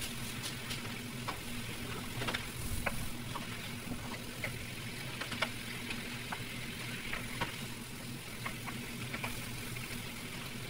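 Chicken pieces frying in a pan with curry powder, a soft steady sizzle with a wooden spatula clicking and scraping against the pan now and then as they are stirred. A steady low hum runs underneath.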